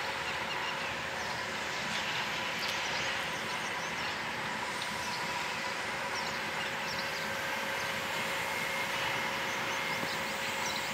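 Steady machinery running noise with a faint, even hum, unbroken throughout.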